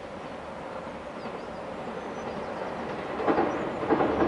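JR Shikoku 2700 series diesel limited express approaching and growing steadily louder. Its wheels begin clacking over the rail joints about three seconds in.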